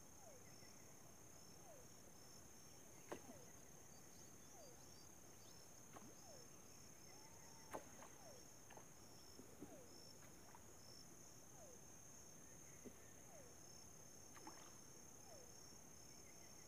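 Faint outdoor ambience: insects trilling high and steady with a regular pulsing chirp, a faint short falling call repeating about once a second, and a few soft clicks.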